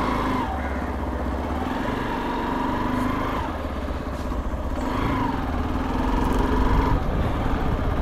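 Hero Xpulse 200's single-cylinder engine pulling away and accelerating at low speed. Its pitch rises, drops and rises again a few times as it shifts up through the gears.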